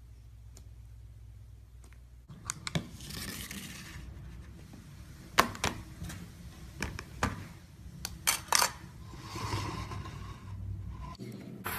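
Slime being handled by hand: sharp clicking pops and crackles with soft squishy noise between them, starting about two seconds in after a low hum.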